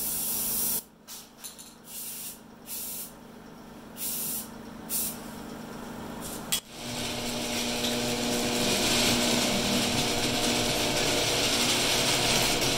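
Primer sealer being sprayed onto a fiberglass tractor body: several short hissing spurts, a sharp click about six and a half seconds in, then one long continuous spray pass with a low hum under it.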